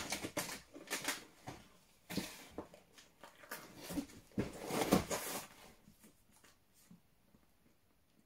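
Crunching and crackling of a snack being chewed close to the microphone, mixed with rustling of its packaging. It dies away about five and a half seconds in.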